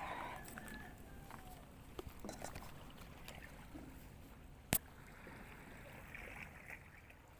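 Faint waterside ambience with a steady low rumble, broken by a single sharp click a little under five seconds in.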